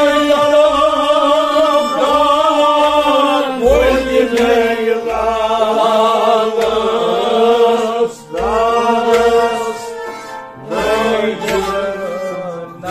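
Kashmiri Sufi devotional song: men's voices sing a long, ornamented melodic line together in phrases, with string instruments and low hand-drum strokes beneath.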